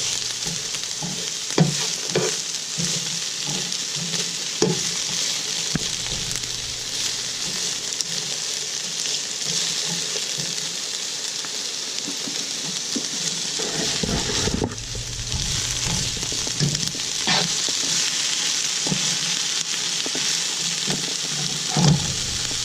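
Chopped onion sizzling in hot olive oil in a pan, with a steady hiss and occasional knocks and scrapes of a utensil stirring it.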